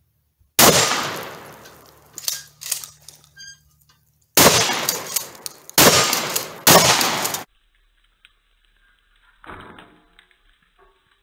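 A 12-gauge pump-action shotgun firing four shots, each with a long echoing tail: one shot, then after a pause three more in quick succession about a second apart. Two fainter clacks fall between the first and second shots, and a short metallic ring sounds about three seconds in.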